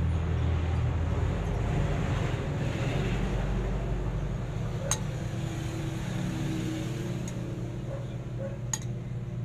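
A steady low machine hum, with a few light sharp clicks from about five seconds in.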